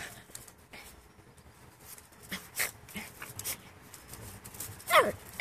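Yorkshire terrier giving a single sharp, high-pitched bark that drops in pitch near the end, after several quiet seconds with only faint scuffling clicks.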